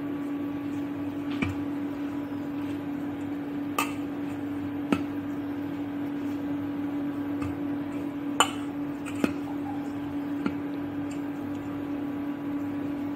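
Light, irregular clinks and taps on a stainless steel bowl, about six in all, as small balls of stiff dough are pinched off and dropped by hand, over a steady low hum.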